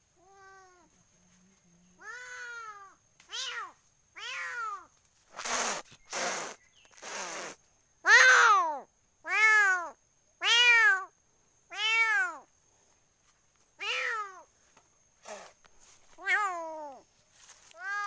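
A domestic cat caught by the leg in a snare trap meowing over and over, about a dozen cries roughly one a second, each rising then falling in pitch. Three harsher, noisier cries come in the middle.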